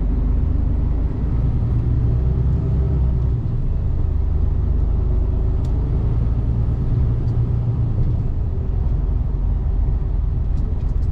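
Truck's diesel engine running while driving, a steady low rumble with road noise.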